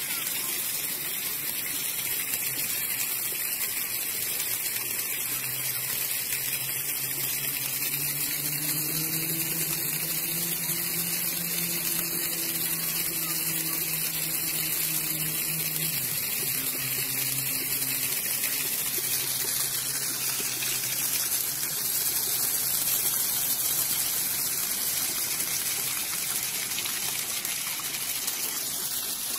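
Water jets of a floor splash fountain spraying up through metal grates and splashing down onto the wet stone, a steady hiss. A faint low hum comes in for about ten seconds in the middle.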